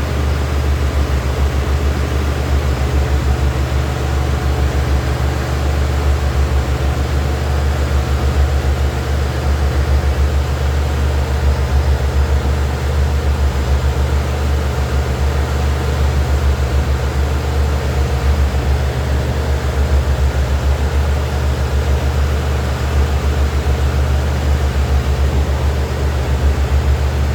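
Steady low drone of a running machine, with a fast even flutter and noise above it.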